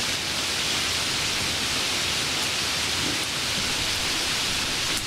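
Steady rainfall: an even hiss with no single drops or claps standing out.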